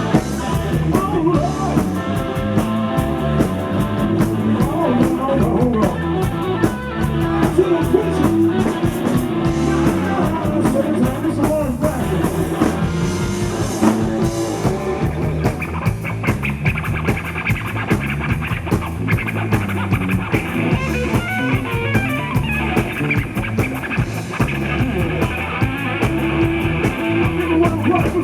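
Rock band playing an instrumental passage: guitar over a drum kit keeping a steady beat, with a high sustained line coming in about halfway through.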